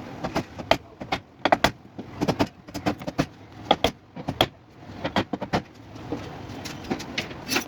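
A quick, irregular series of sharp knocks and taps, about twenty, from hand work on car body metal, with a short lull about six seconds in.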